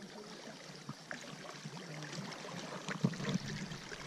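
Water moving against a small boat's hull, with a few light knocks and handling noises.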